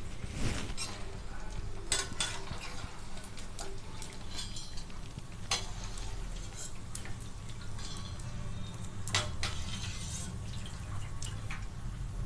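Perforated steel skimmer scraping and clinking against a steel kadai and wire basket while lifting fried sago murukku out of hot oil, in scattered knocks. Under it the oil sizzles lightly: the bubbles have died down because the murukku is cooked through.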